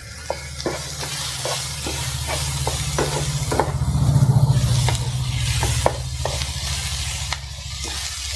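Chopped onions and curry leaves sizzling in hot oil in a non-stick pan while a wooden spatula stirs them, tapping and scraping the pan every third to half second. A steady low hum runs underneath, loudest near the middle.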